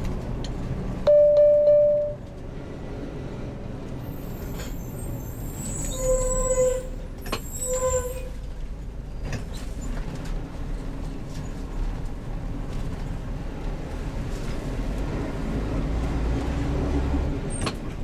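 Engine of a heavy truck-based motorhome running on the road, a low steady rumble. About a second in a loud steady tone sounds for about a second, and two shorter tones follow around six and eight seconds in.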